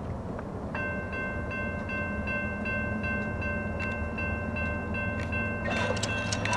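Railroad grade-crossing bell starting about a second in and ringing steadily at about three strokes a second, as the crossing activates for an approaching train. A low rumble lies underneath, and a short rush of noise comes near the end.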